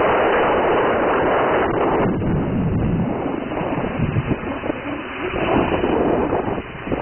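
Wind buffeting the microphone, heaviest in the first two seconds, over the whirring of a hexacopter's six electric motors and propellers as it hovers and manoeuvres.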